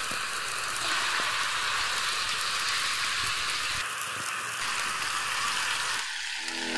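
Raw chicken pieces sizzling in hot oil with sautéed garlic, ginger and onion in a wok: a steady frying hiss, with a few faint clicks of a metal ladle against the pan.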